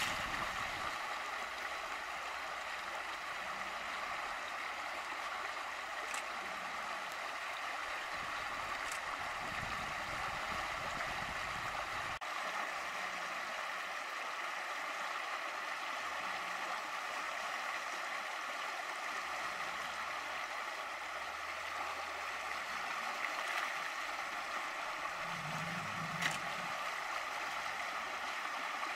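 Steady rush of water pouring over a concrete weir, with a splash at the very start as an alligator lunges in the shallows.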